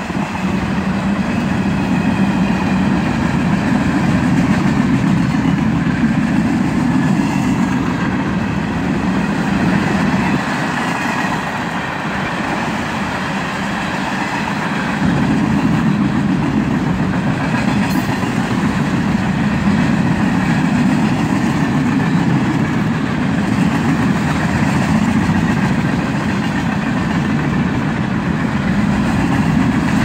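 Freight cars of a CSX train rolling past: a steady rumble and rattle of wheels on the rails that dips a little midway and picks up again.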